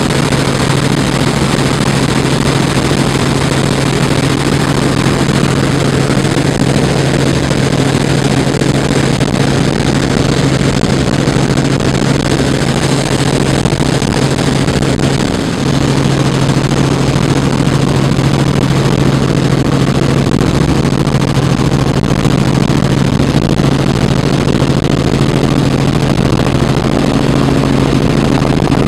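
Helicopter in flight heard from inside the cabin: a steady, loud drone of engine and rotors with a low hum and rushing air noise, dipping briefly about halfway through.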